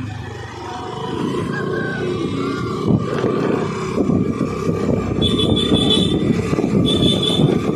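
Motorcycle running on the road, a steady low rumble, with two short high-pitched tones about five and seven seconds in.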